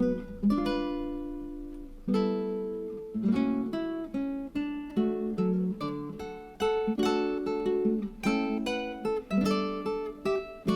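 Background music: an acoustic guitar strummed and picked in a steady rhythm, each note ringing and fading.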